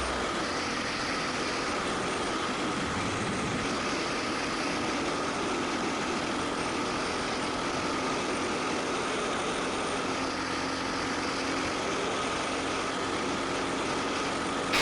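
Steady motor-vehicle road noise: an even hiss with a faint steady engine hum underneath.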